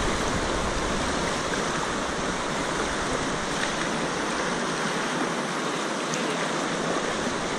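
River rapids rushing: a steady, even hiss of fast whitewater.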